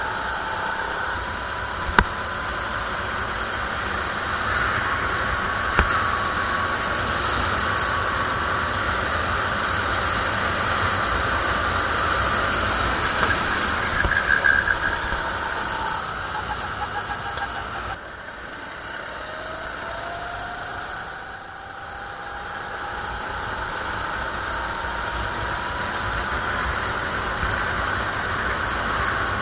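A CRG rental kart's 270 cc engine running hard on track, heard onboard with wind noise over the action camera's microphone. A brief squeal comes about halfway through; a little later the engine note drops as the driver lifts off, then climbs steadily as the kart accelerates again.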